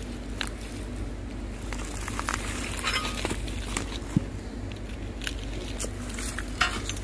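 Metal snake hook and rake scraping and knocking among loose stones and dry debris, with scattered clinks and rustles and a sharp knock about four seconds in.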